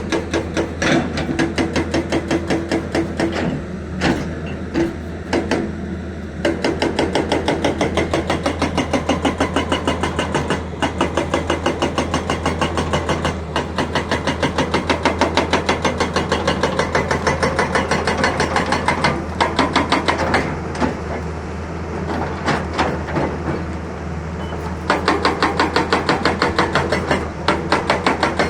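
Excavator-mounted hydraulic breaker hammering in rapid, evenly spaced blows, about six or seven a second, over the steady drone of the excavator's diesel engine. The blows stop briefly twice and then resume.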